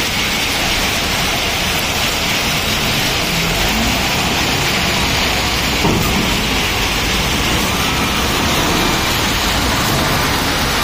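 LiuGong 856H wheel loader's diesel engine running close by, a loud, even noise, with a brief knock about six seconds in.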